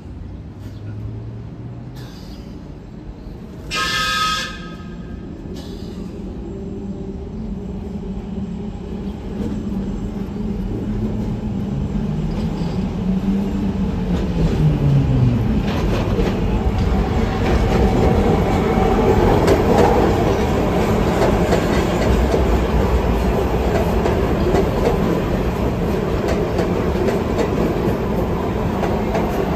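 A SEPTA Market–Frankford Line train (M-4 cars) gives a short horn blast, then approaches and pulls in. Its rumble and wheel clatter grow steadily louder, with a tone dropping in pitch in the middle as it slows.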